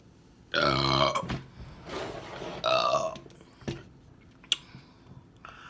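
A woman burping after gulping carbonated soda: a long, low, loud burp about half a second in, then a second loud burp a couple of seconds later, with a softer one between them. A couple of sharp clicks follow near the end.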